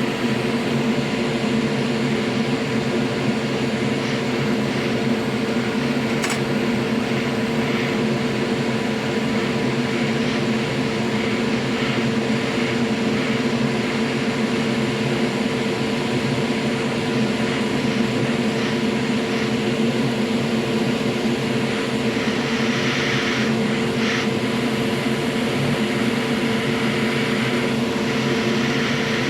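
A loud electric motor or fan running steadily with a constant hum of several fixed tones, as from a bench tool used during console repair. There is a single click about six seconds in and some brief hissy patches over it near the end.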